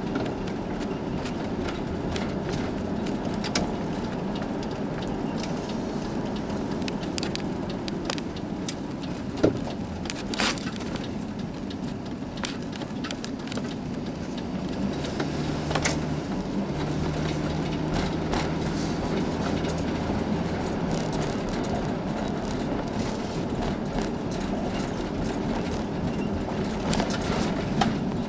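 Vehicle driving, heard from inside the cabin: steady road and engine rumble with scattered light rattles and clicks. An even engine drone comes up more clearly from about midway and fades again a few seconds later.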